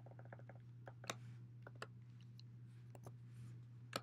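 Faint, sparse keystrokes on a computer keyboard: a quick few near the start, then single clicks, over a steady low hum.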